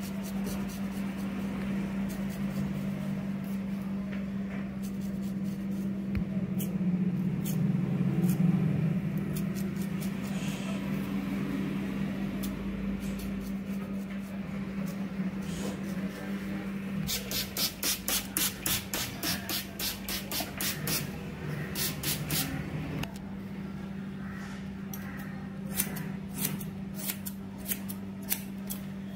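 Straight razor scraping short hair off the nape, with a run of sharp strokes about two or three a second. Near the end, scissors snip through hair. A steady low hum lies under it all.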